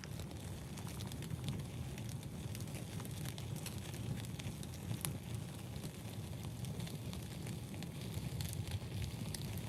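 Wood fire crackling: scattered sharp pops and clicks over a steady low rumble.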